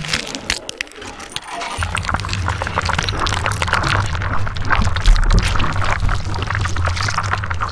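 Animated logo intro sound design: dense glitchy crackles and clicks, joined about two seconds in by a deep steady bass drone, with a heavy low hit about five seconds in.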